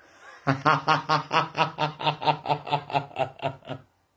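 A person laughing: a long run of quick, even 'ha' pulses, about six a second, starting about half a second in and stopping near the end.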